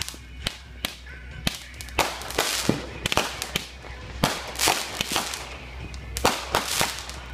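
Fireworks going off: a quick, irregular run of sharp cracks and pops, with bursts of crackling in between.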